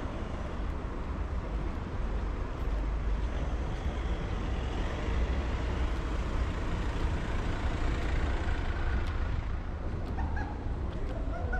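City street traffic: cars driving past on a wet road, a broad tyre-and-engine noise that swells through the middle and eases near the end, over a steady low rumble.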